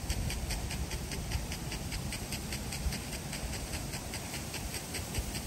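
Pitch sprinkler spraying the turf with a rapid, even ticking, about six ticks a second, over wind rumbling on the microphone.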